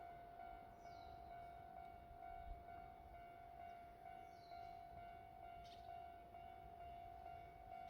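Near silence, with a faint steady high tone and its overtones, and a few brief high falling chirps.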